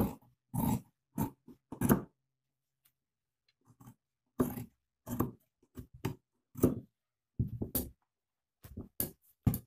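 Large tailoring scissors cutting through folded denim from old jeans: about a dozen short, separate snips with brief pauses between them, in two runs.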